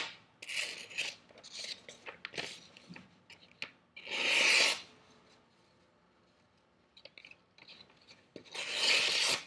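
A D2 steel fixed-blade knife slicing through sheets of paper, with a rasping sound on each cut. Several short strokes come first, then a longer, louder slice about four seconds in and another near the end.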